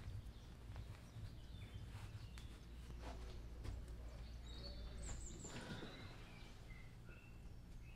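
Quiet room ambience with a steady low hum, and a few short, faint bird chirps every second or two.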